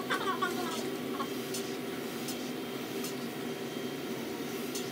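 Steady whir of powered air-purifying respirator (PAPR) blowers, with a few faint clicks.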